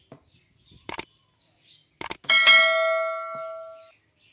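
Two pairs of sharp clicks, then a bell-like ding that rings out and fades over about a second and a half: a subscribe-button sound effect of mouse clicks and a notification bell.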